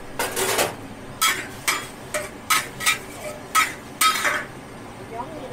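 Metal ladle and spatula scraping and clanking against a wok while stir-frying noodles. A short scrape comes first, then a string of sharp, ringing metallic clanks, roughly two a second, over a steady hiss.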